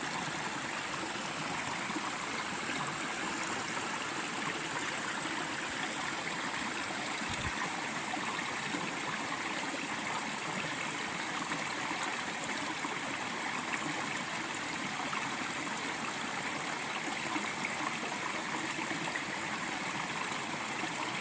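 Mountain stream flowing steadily, an even rush of water.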